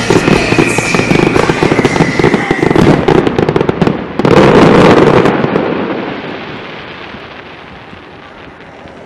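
Aerial fireworks going off in a dense, rapid stream of cracks and bangs. A loud volley comes about four seconds in, then the sound dies away gradually.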